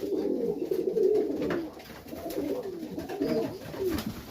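Several pigeons cooing together in an enclosed loft, overlapping low warbling calls.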